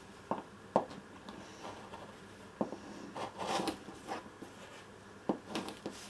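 Rotary cutter trimming cotton fabric and batting on a cutting mat: a handful of short, sharp clicks and brief scraping cuts, with fabric rustling as it is handled, the longest stretch of scraping about three to four seconds in.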